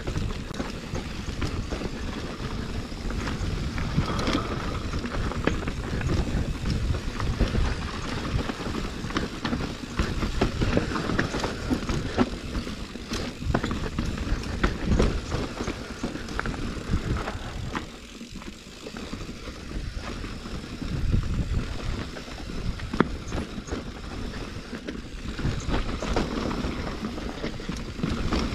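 Mountain bike descending a fast natural dirt trail: steady tyre noise with the chain and frame rattling and frequent sharp knocks over rough ground. It goes quieter for a couple of seconds about eighteen seconds in.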